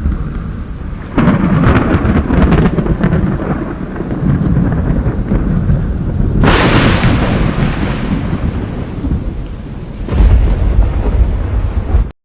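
Severe thunderstorm: heavy rain and continuous deep rumbling of thunder, with a sharp crack about six and a half seconds in and a heavy low rumble near the end, cutting off suddenly.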